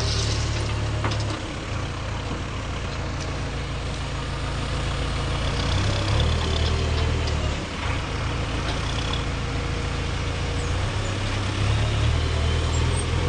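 Backhoe loader's diesel engine running steadily with a low rumble that shifts in level every few seconds.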